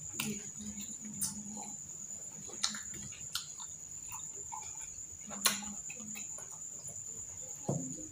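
A steady high-pitched cricket trill runs underneath, with about six sharp clicks and taps of metal forks on a plastic container and plates as food is picked up; the loudest click comes about five and a half seconds in.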